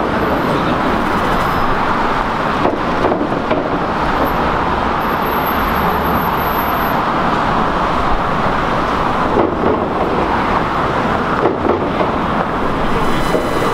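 City street traffic heard from above: a steady wash of car engine and tyre noise from vehicles passing through an intersection, with a deeper rumble swelling for a couple of seconds about five seconds in.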